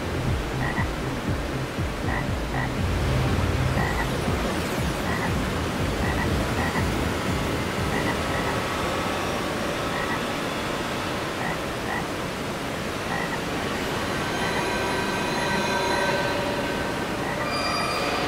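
Ambient electronic soundscape: a dense noisy wash with short croak-like blips repeating roughly once a second, over a low rumble that fades after the first few seconds. Steady high tones come in near the end.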